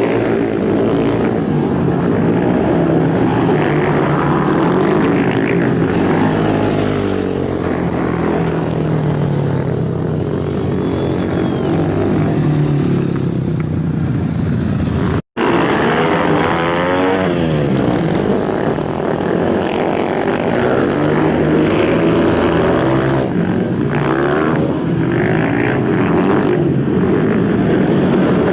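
Racing superbike engines revving hard, their pitch rising and falling as several bikes pass. The sound cuts out for an instant about halfway through, then resumes.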